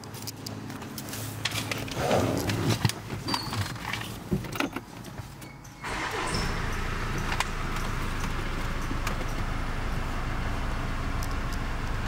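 Clicks and rustles of handling inside a Land Rover Discovery Sport's cabin. About six seconds in the car starts up suddenly and a steady low hum runs on.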